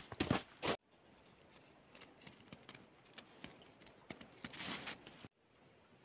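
Knocks and clatter of firewood being handled while a cabin wood stove is lit, stopping abruptly under a second in. Faint scattered ticks and crackles follow, then a sudden drop to near silence about five seconds in.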